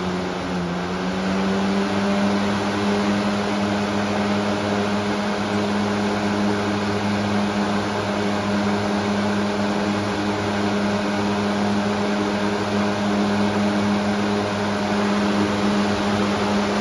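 Air King 20-inch box fan (model 9723) speeding up about a second in, then running steadily at high speed: a loud rush of air with a strong, steady low hum from the blades.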